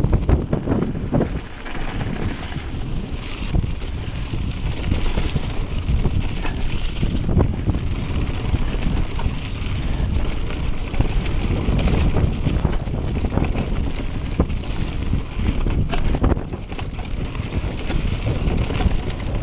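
Wind buffeting the action camera's microphone over the continuous rumble and rattle of a full-suspension mountain bike riding fast down a rough, muddy track.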